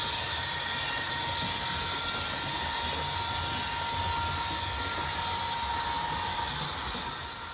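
Passenger train hauled by a diesel locomotive running past on the rails, a steady rumble and rush of wheels with a thin high-pitched whine held over it. It drops off a little near the end.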